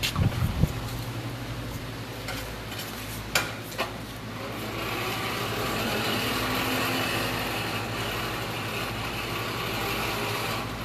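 Steady mechanical running noise with a low hum. A hiss swells in from about four seconds in, and a few sharp knocks come near the start and twice around three and a half seconds in.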